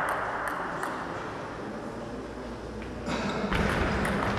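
A few light, sharp clicks of a table tennis ball, about half a second apart, while the applause from the last point fades away in a large echoing hall.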